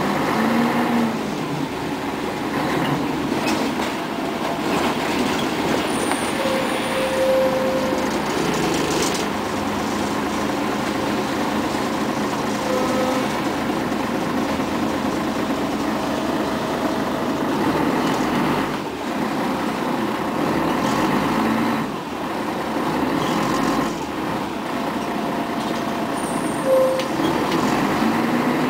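Cabin noise inside a 1996 Scania CN113ALB articulated city bus under way: the diesel engine runs steadily under tyre hiss on the wet road. A brief tone sounds now and then, and near the end the engine note rises as the bus pulls away.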